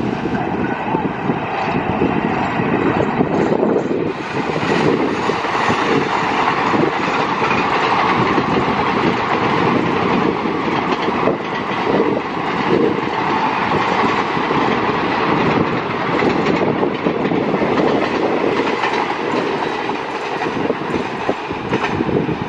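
Diesel-hauled passenger train passing: a steady rumble with the wheels clicking rapidly over the rail joints as the coaches roll by.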